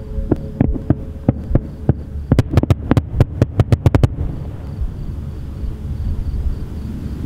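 Fireworks going off: sharp bangs a couple of times a second, quickening into a rapid run of about a dozen reports in the middle, then stopping suddenly, leaving a low steady rumble.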